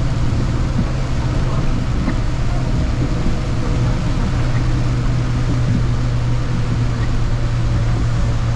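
City bus under way, heard from inside the cabin: a steady low engine drone with road noise.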